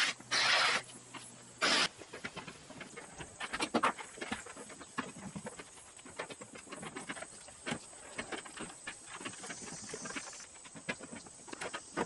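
Irregular metal knocks and clanks of a claw hammer working at the hinges of a box truck's aluminium roll-up door, prying the door panels free. A few short, loud, harsh bursts come in the first two seconds.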